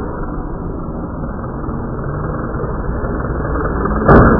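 Single-engine propeller plane flying low overhead, its engine drone growing steadily louder as it comes closer. About four seconds in, a single sharp crack as the plane's wing strikes an antenna mast.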